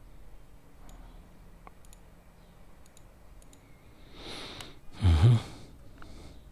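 Computer mouse clicking lightly a few times. About five seconds in, a short, loud breath blows across the microphone just after a hissing intake, the loudest sound here.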